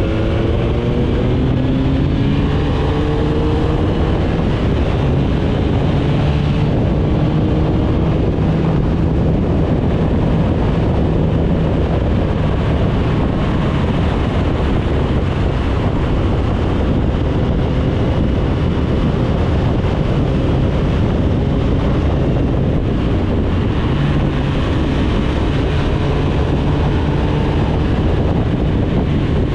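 Motorcycle engine running under way with heavy wind rush over the microphone. The engine note rises over the first few seconds as the bike accelerates, then holds steady at cruising speed.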